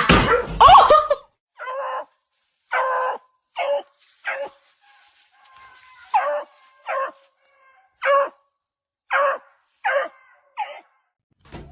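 A dog giving a run of about ten short, high-pitched barks, roughly one a second, after a loud jumble of sound in the first second.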